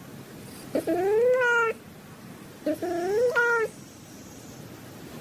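Domestic cat meowing twice, each meow about a second long and rising in pitch.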